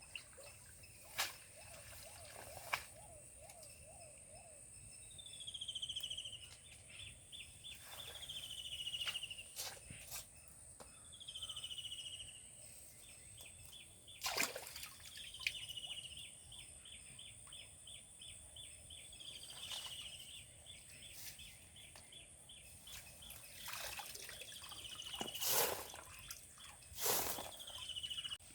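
A bird calling repeatedly, one short falling note every three to four seconds, over a steady high insect drone. A few sharp knocks stand out, the loudest near the start.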